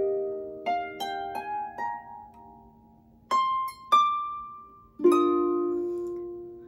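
Lever harp plucked, picking out a Christmas carol melody slowly with single notes and chords that ring and fade. There is a pause of about a second partway through, and a chord rings out near the end.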